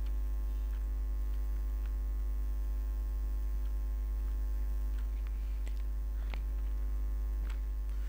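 Steady electrical mains hum picked up by the recording, with a few faint clicks scattered through it.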